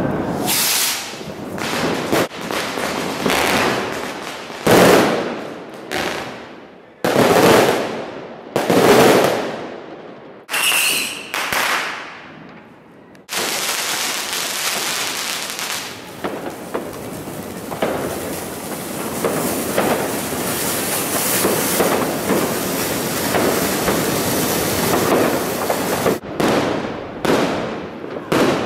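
Fireworks going off in a street: a string of loud firecracker bangs, each trailing off in an echo, through the first half. About halfway through, a ground fountain starts spraying sparks with a continuous crackling hiss that lasts about thirteen seconds, followed by a few more bangs near the end.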